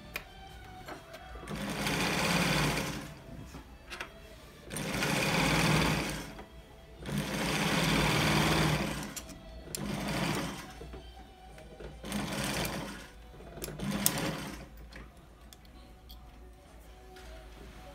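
A Zoje industrial sewing machine runs in six short bursts of one to two seconds each, with short pauses between them. It is being test-run while its rotary hook is adjusted.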